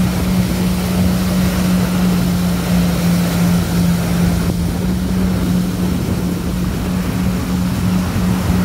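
Jet ski engine running at a constant speed, a steady hum that never changes pitch, under a continuous rush of wind and water noise while under way.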